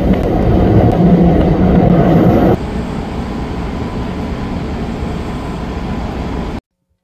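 Hanshin Railway train running, heard from inside the carriage as a steady rumbling noise of wheels on rails. It is louder for the first two and a half seconds, then drops to a lower, even level, and cuts off to silence shortly before the end.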